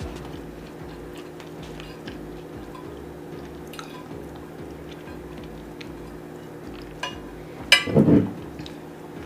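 Close-miked eating: small scattered clicks of cutlery on a plate and mouth sounds, with one loud, crunchy bite about eight seconds in.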